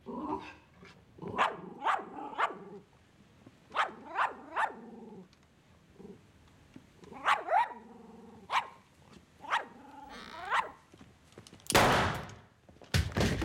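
A dog barking repeatedly in short groups of two or three barks. Near the end come two loud bangs.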